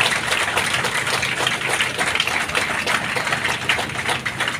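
Applause from a crowd, many hand claps overlapping irregularly, over a steady low hum.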